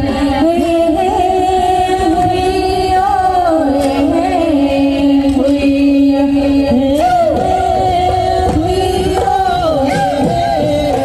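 Assamese Bihu song: singing with bending melodic lines over a steady held note and dense low drumming.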